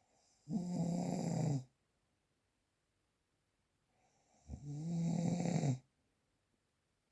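Snoring: two long, rasping snores about four seconds apart, each lasting a little over a second, with quiet breathing gaps between them.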